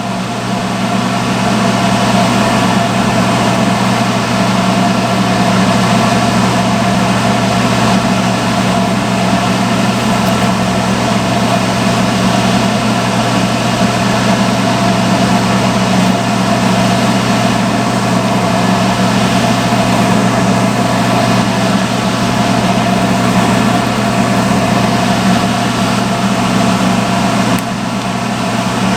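Salon hood hair dryer running: a steady motor hum with the rush of its blower, heard from under the hood. It dips slightly in loudness near the end.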